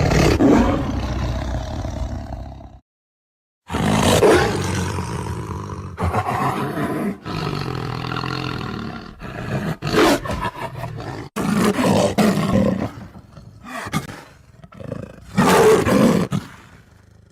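Lion roaring: one long roar, about a second's pause, then a long series of roars and grunts that swell and fade with short gaps between them.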